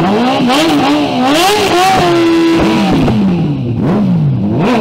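Inline-four superbike engines revving hard at the drag-strip start line. The revs waver up and down, are held level for about a second around two seconds in, then go in quick rising-and-falling throttle blips, as in a burnout heating the rear tyre.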